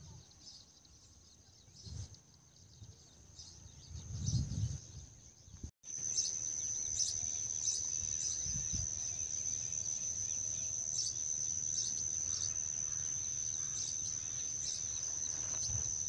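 Insects giving a steady, high-pitched trill. It grows much louder after a cut about six seconds in. Low thumps sound on the microphone in the first part.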